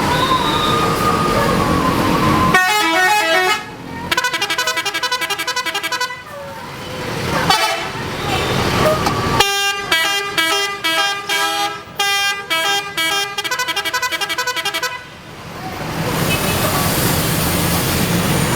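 Indonesian bus 'telolet' horns, multi-tone musical air horns, playing rapid runs of stepping notes: a short burst about three seconds in, a longer run just after, and a long fast melody from about nine to fifteen seconds in. Noise from the road and onlookers fills the gaps between the runs.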